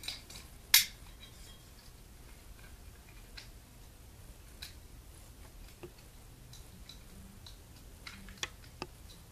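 One sharp click about a second in, then scattered small clicks and taps from hands handling the metal trim and socket of a recessed halogen ceiling light fixture, over a faint steady low hum.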